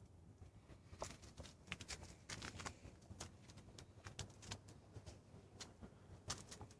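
Scattered light clicks and taps of tools and metal parts being handled during brake work, irregular and close together.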